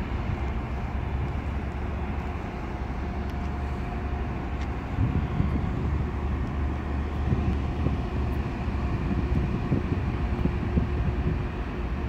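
Heavy trucks' diesel engines running steadily as a low rumble, a little louder about five seconds in.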